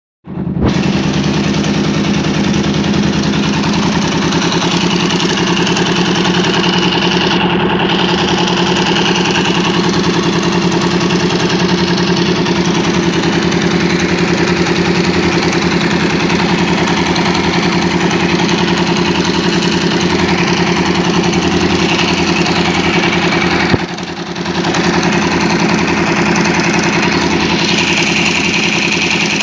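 Kawasaki KLE 500's parallel-twin engine idling steadily after its carburettors have been cleaned. About 24 seconds in there is a short knock and a brief dip in level.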